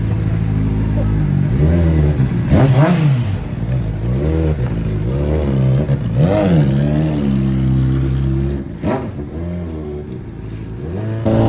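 Honda CBR600RR's inline-four engine through a loud Yoshimura slip-on exhaust as the bike is ridden, revs climbing and falling back several times, easing off near the end.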